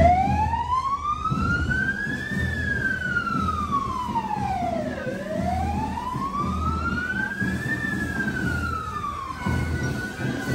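Emergency vehicle siren, the Civil Defence van's, sounding a slow wail: it rises for about two seconds, falls for about two and a half, rises again and falls, then cuts off near the end.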